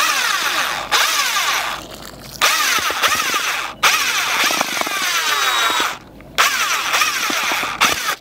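Damp groundbait being mixed in a bucket, in about five bursts of one to two seconds with short pauses, as the moistened mix is worked until it will hold together in balls.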